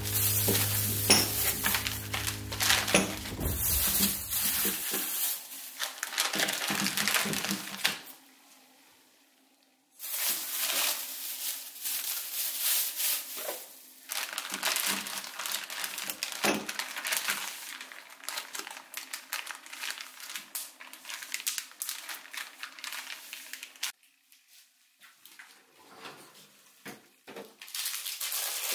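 Plastic zip-top storage bag crinkling and rustling as carrots are handled and packed into it, with a short pause partway through. Background music fades out in the first few seconds.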